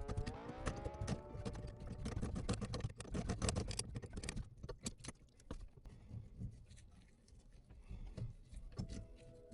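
Rapid clicks, knocks and clatter of objects being handled, thinning out to scattered taps after about five seconds.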